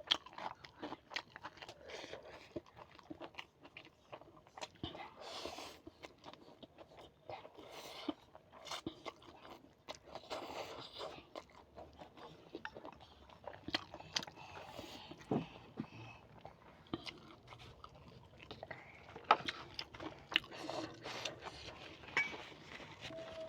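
Close-miked eating: irregular crunching, biting and chewing, with slurps and smacks of the mouth.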